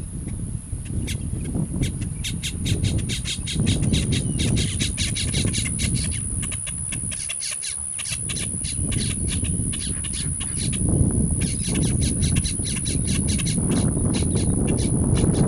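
Boat-tailed grackle fledgling begging while its mother feeds it: rapid, harsh, chattering calls, about five a second, in two long runs with a short break near the middle. A low rumble of wind on the microphone runs underneath.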